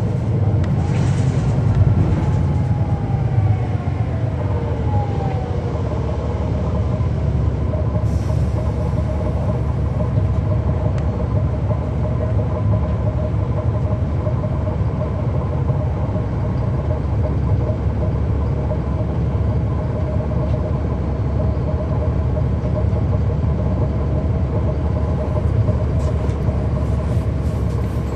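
Inside a 2009 NABI 40-foot transit bus under way: the Cummins ISL9 diesel engine and ZF automatic transmission run under a steady low road rumble. A whine falls in pitch over the first few seconds, then holds steady.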